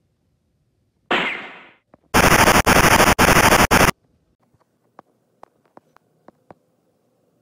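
A single blast about a second in, then a loud burst of machine-gun fire sound effect lasting nearly two seconds, cutting off suddenly; faint scattered clicks follow.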